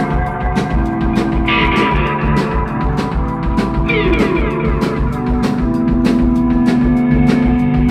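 A live rock band playing an instrumental break: guitar over a steady drum beat, with gliding guitar notes.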